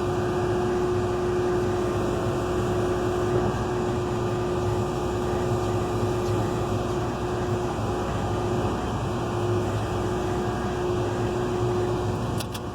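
Caterpillar 320 excavator's diesel engine running steadily, with a steady whine over it that stops shortly before the end.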